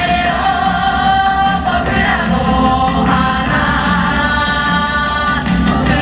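Loud YOSAKOI dance music: a chorus of voices singing long held notes over a full backing track.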